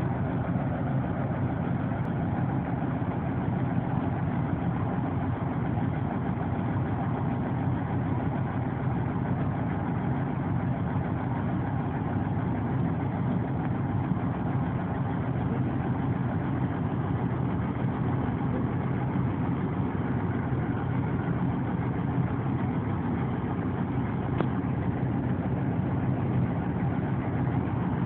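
Large diesel engine of a mining haul truck idling steadily, with a deep, unchanging rumble.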